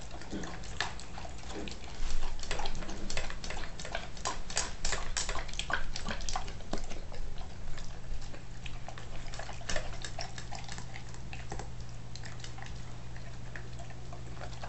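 Bernese Mountain Dog eating steak in gravy with kibble from a stainless steel bowl: sloppy, wet chewing and lapping with irregular clicks against the bowl. The eating is busiest from about two seconds in until about ten seconds, then thins out.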